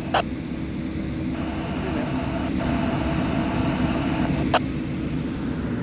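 Steady low rumble of idling fire apparatus engines, with two sharp clicks, one right at the start and one about four and a half seconds in.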